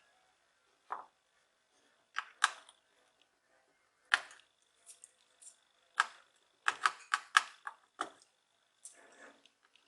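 Scattered sharp clicks and light metallic taps of small hand tools on an electronic circuit board as a replacement transistor is fitted, about a dozen, some in quick pairs, with a faint steady high whine beneath.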